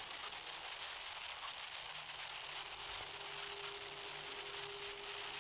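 Steady faint hiss of static with a low hum underneath; a thin steady tone comes in about halfway through. No speech is heard over the line.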